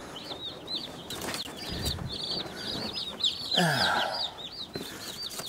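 A brooder full of day-old Meat King (Cornish cross) broiler chicks peeping, a dense chorus of short, high chirps. A little past halfway there is a brief, louder, lower sound that falls in pitch.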